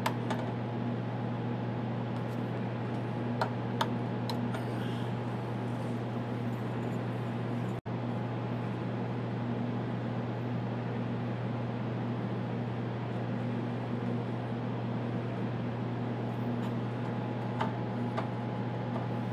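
Steady low machine hum of cooling fans or air conditioning in a telecom equipment room, with a faint steady whine above it. A few faint clicks come from fibres and the splice tray being handled, a few seconds in and again near the end, and the sound cuts out for an instant about eight seconds in.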